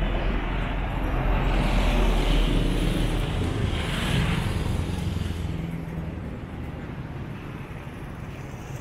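Street traffic: engines and tyres of passing motorcycles and other vehicles, a low rumble and hiss that is loudest in the first half and fades away after about five seconds.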